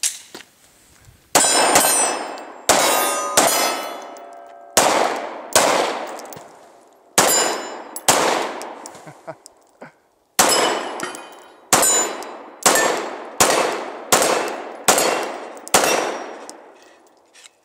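Glock 19 Gen 4 9mm pistol fired about fifteen times at a steady but unhurried pace, with a short pause about two-thirds through. Hits on steel targets ring after the shots.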